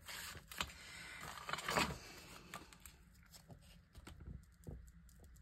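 Quiet paper-craft handling: light taps and clicks with a short rustle of paper a little under two seconds in, as a butterfly embellishment is picked up and pressed onto a journal page.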